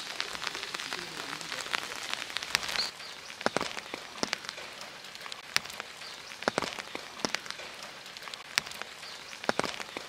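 Steady rain falling, with single close drops landing sharply at irregular moments, about once or twice a second.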